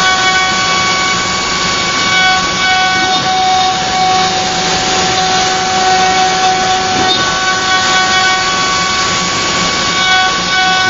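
CNC wood router spindle running with a steady high whine over a hiss as its bit cuts into a pine board.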